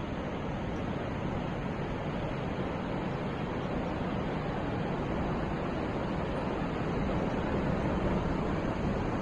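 Steady rush of ocean surf breaking on a beach, growing slightly louder toward the end.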